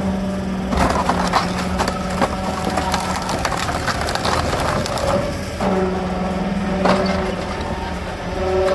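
Hydraulic wood splitter forcing logs apart: wood cracking and splintering over the steady hum of the machine's engine and hydraulics.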